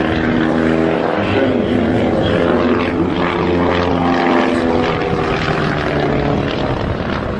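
Propeller-driven aerobatic biplane's piston engine running, its pitch wavering and shifting as the plane tumbles and dives.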